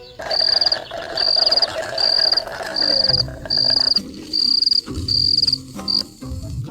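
An insect chirping in a steady rhythm: eight high-pitched trilled chirps, each about half a second long, repeating a little more than once a second.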